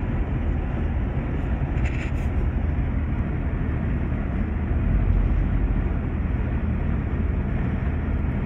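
Steady road and engine noise heard inside the cabin of a moving Jeep Cherokee XJ, a low, even rumble.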